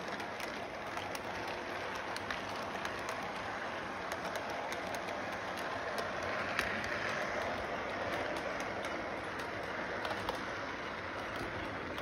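Model train cars rolling along their track: a steady running noise with many scattered small clicks.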